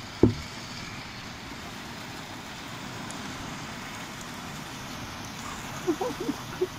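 Heavy rain falling steadily in a thunderstorm, with one sharp knock just after the start.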